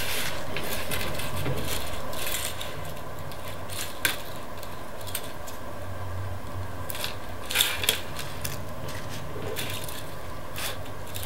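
Plastic drinking straws and paper-clip junctions handled on a wooden table: scattered light clicks and taps as straws are fitted onto the clips, with a few sharper ones about four seconds in and after seven seconds, over a steady low hum.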